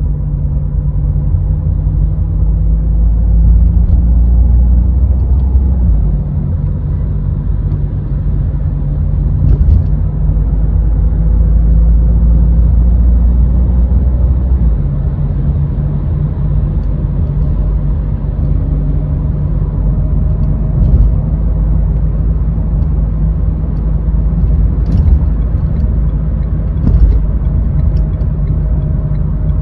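Car driving in city traffic: a steady low engine and road rumble that swells louder twice, for a few seconds each time.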